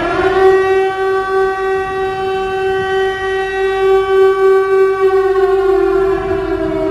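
Civil defense siren wailing: it rises in pitch at the start, holds one steady tone, then begins to fall about five seconds in.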